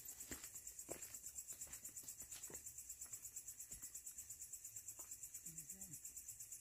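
Faint crickets chirping, a high-pitched pulsing about eight times a second, with a few soft footsteps on a dirt trail.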